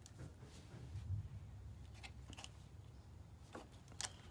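A few faint clicks and clinks of hand tools on metal, with the sharpest near the end, over a low hum.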